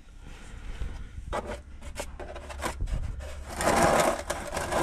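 A 17 mm socket wrench clicking and scraping on an engine's sump plug as the just-loosened drain plug is backed off: a few separate clicks, then a longer stretch of scraping and rattling near the end.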